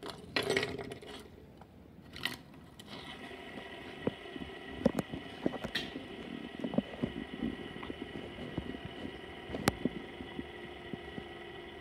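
Hands scraping and flicking two fidget spinners on a tabletop, then both spinners whirring steadily on their bearings with a faint hum and scattered light clicks.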